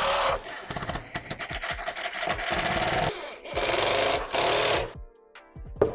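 Power tool running in two loud bursts, with a rapid rattling, repetitive stroke in between, then music starts about five seconds in.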